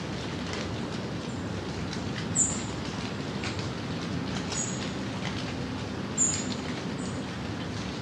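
Steady light rain, with single drops tapping close by and a low distant rumble underneath. A small bird gives short, very high chirps three times, about two and a half, four and a half and six seconds in.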